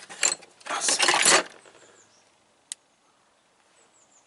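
Old metal hand tools such as pliers clattering and jangling against each other as they are rummaged through in a tool chest, loudly for about the first second and a half, then stopping, with one sharp click a little later.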